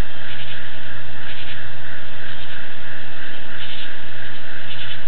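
Night insects chirring steadily, with louder pulses of higher chirping about once a second, over a steady low hum such as an idling truck engine.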